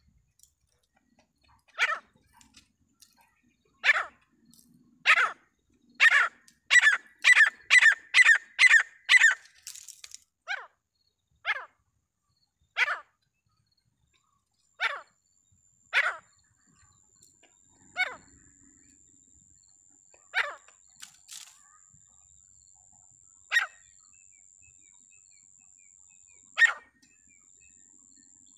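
Teetar (francolin) calling: loud, sharp, ringing calls a second or two apart that speed up into a quick run of about nine calls, then slow again to one every couple of seconds. A faint steady high-pitched whine sets in about halfway.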